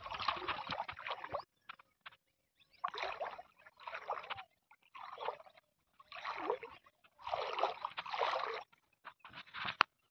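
Legs wading through floodwater, a separate slosh and swish of water with each stride, roughly one every second.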